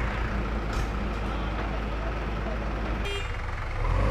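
A JCB backhoe loader's diesel engine running steadily under load as the backhoe digs. A brief high-pitched sound comes about three seconds in, and the engine grows a little louder near the end.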